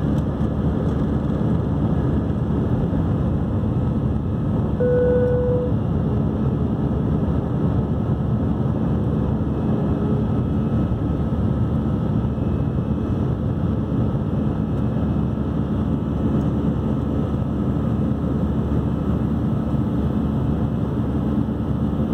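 Airbus A319 jet engines at take-off thrust, heard from inside the cabin over the wing: a loud, steady rumble through the take-off and initial climb. A brief steady tone sounds about five seconds in.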